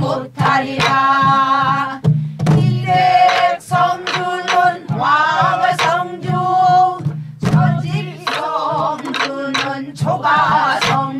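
A mixed group of women and men singing a Namdo folk song together in long, held, wavering notes. They are accompanied by sharp stick strokes on Korean barrel drums (buk).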